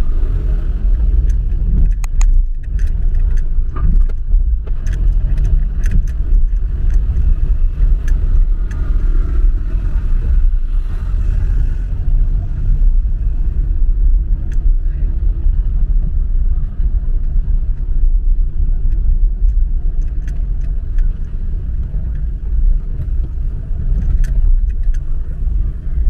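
Car driving slowly on a city street: a steady low rumble of engine and road, with scattered light clicks and rattles.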